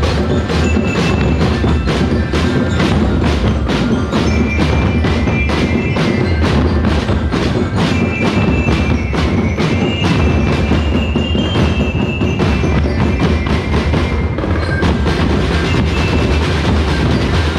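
Festival street drum band playing a fast, even beat on drums and percussion, with high ringing tones over it.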